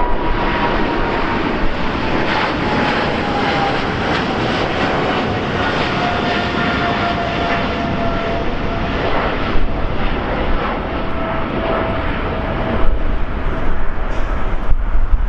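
Jet airliner passing, its engines making a loud rushing noise with a whine that falls slowly in pitch as it goes by.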